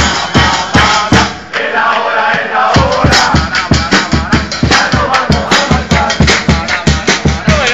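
Upbeat music with a fast, steady drum beat; the bass drum drops out for about a second shortly after the start, then comes back in.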